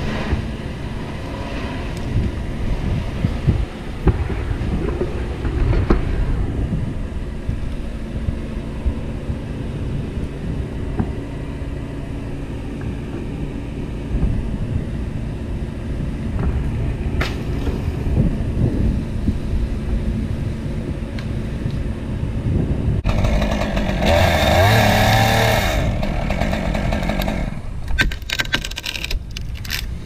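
Wind buffeting the microphone over an engine running steadily, with a louder, higher-pitched burst of machine noise lasting a few seconds near the end.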